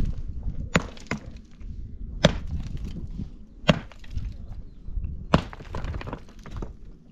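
Sharp knocks of wood being struck, five separate hits at uneven gaps over a low steady rumble.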